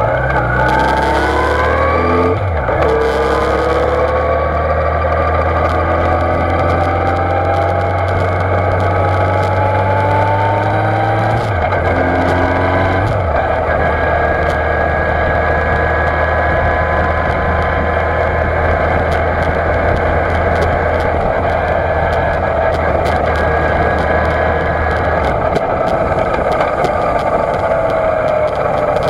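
Yamaha FJR1300's inline-four engine pulling away and accelerating: its pitch climbs, drops back at each of a few gear changes over the first dozen seconds, then holds a steady cruise with road noise. The sound is muffled by the sealed dive case the camera sits in.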